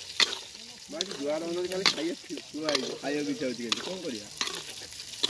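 Metal spatula stirring a thick, wet prawn curry frying in an iron wok. The food sizzles steadily, and the spatula clacks and scrapes against the pan about once a second.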